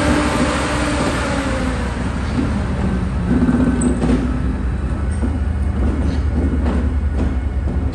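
Class 68 diesel-electric locomotive running light and moving away, its Caterpillar V16 diesel engine giving a steady deep drone, the high hiss fading over the first two seconds. A few short clicks come from the wheels on the track in the second half.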